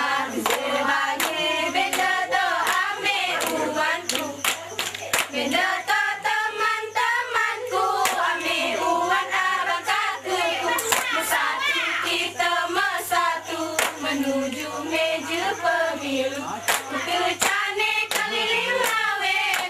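Young women singing a mesekat song together, with sharp hand claps keeping time throughout: the seated singing-and-clapping dance of the Alas people of Southeast Aceh.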